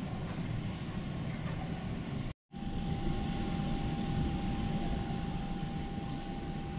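Steady low rumbling room noise of a large empty indoor pool hall. It drops out completely for a moment about two and a half seconds in, then resumes with a steady high hum added.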